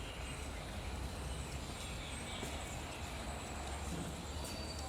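Outdoor ambience: a steady low rumble with faint high chirps above it.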